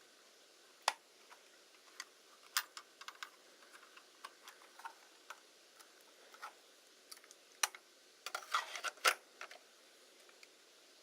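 Irregular light clicks and taps of small camera parts and tools being handled, with a busier patch of clicking and short scrapes about eight seconds in.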